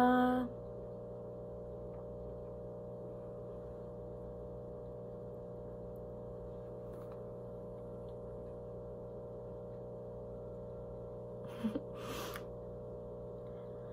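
A steady, fairly quiet hum made of several fixed tones. It opens with a brief voiced 'mm', and a couple of small clicks and a breath come about two seconds before the end.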